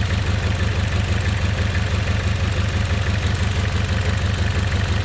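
Car engine idling rough with a misfire, the sign of a dead ignition coil on one cylinder.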